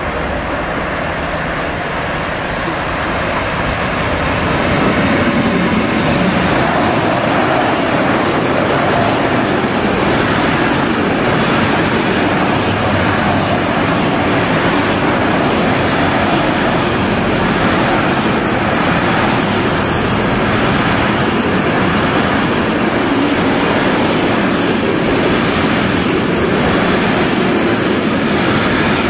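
Electric-hauled container freight train passing close by. The rolling noise of wheels on rails grows louder over the first few seconds as the train arrives, then holds steady as the container wagons rumble past.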